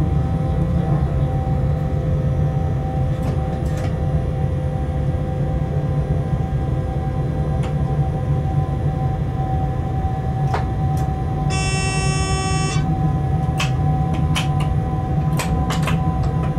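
Locomotive running light at speed, heard inside the cab: a steady low rumble with a constant whine above it and scattered clicks. About two-thirds of the way through, a buzzing tone sounds for a little over a second.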